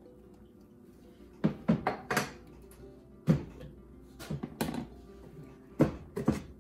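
A series of sharp knocks and clatters of kitchen containers being handled and set down on a counter, irregular and bunched in small groups from about a second and a half in, over soft background music.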